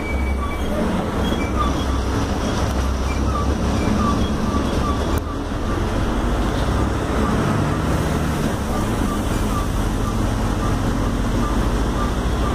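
Mercedes-Benz OF-1721L diesel city bus heard from inside while it drives: a steady engine drone under road noise. Faint high chirps recur throughout, and a single click comes about five seconds in.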